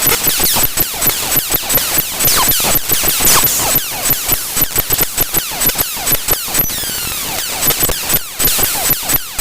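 The raw binary data of a Google Drive DLL file (drivefsext.dll) played directly as audio: a harsh digital hiss with rapid, irregular clicks and dropouts and repeated falling chirps.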